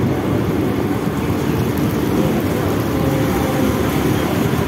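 Mumbai EMU local train running along a station platform, heard from the open doorway of a moving coach: a steady rumble of wheels on the rails.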